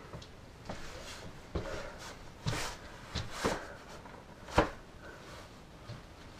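Footsteps and paper rustling on a newspaper-covered floor: a handful of irregular steps and crinkles, the sharpest about four and a half seconds in.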